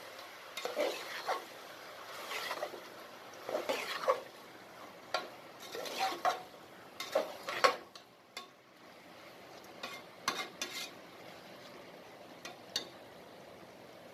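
Perforated metal ladle stirring and scraping onions and tomatoes frying in a pressure cooker, with irregular scrapes and clinks against the pot over a faint steady sizzle; the stirring stops near the end.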